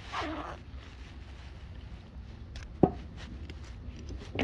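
Two sharp knocks, one about three seconds in and a smaller one at the very end, after a brief swish at the start, over a steady low rumble.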